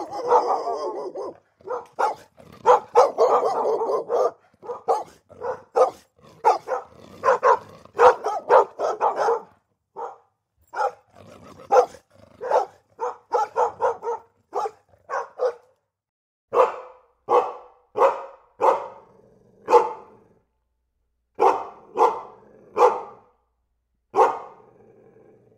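Dog barking over and over, in quick runs of barks at first and then in slower, separate barks in the second half.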